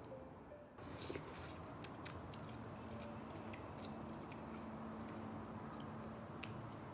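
A person eating instant ramyeon noodles: slurping and chewing, with many small sharp clicks through it.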